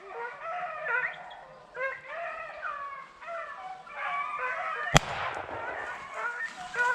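A pack of beagles baying, many voices overlapping, as they run a rabbit. A single gunshot cracks about five seconds in.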